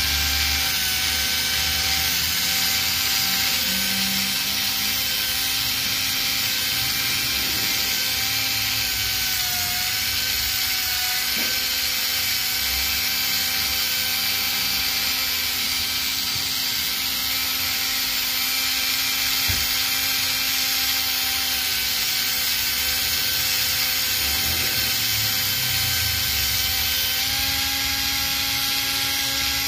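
Small electric motor of a model tyre truing lathe running steadily, belt-driving a pair of model car wheels whose rubber tyres are pressed down onto abrasive paper and ground down. A steady whine with a hiss over it; the pitch dips briefly about ten seconds in and rises slightly near the end.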